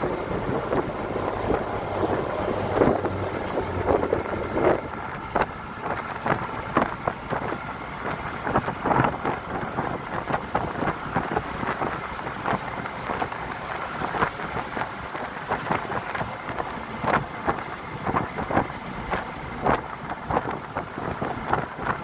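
Bus running along a hill road, heard from inside at an open window: steady road and wind noise with many irregular knocks and rattles from the body.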